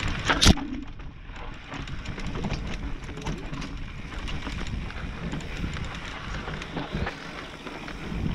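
Mountain bike rolling down a dirt forest trail: tyres crunching over dirt and roots, with the bike rattling in small clicks and knocks throughout. There is a sharp loud clack about half a second in.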